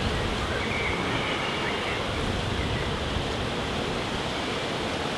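Wind buffeting the microphone: a steady rushing noise.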